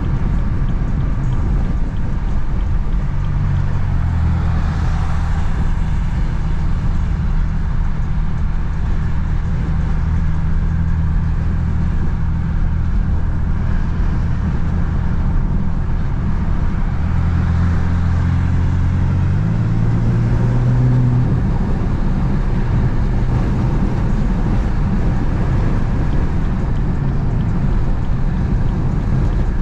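Inside the cabin of a BMW F80 M3, the S55 twin-turbo straight-six runs with a VRSF single mid pipe and the stock exhaust. It makes a steady low engine note under tyre and road noise while driving at speed. The note shifts up in pitch for a moment about two-thirds of the way through.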